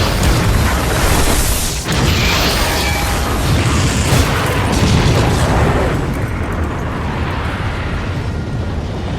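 Explosion sound effect from a Gamera kaiju film: a long rumbling blast with a short break about two seconds in, then slowly dying away from about six seconds in.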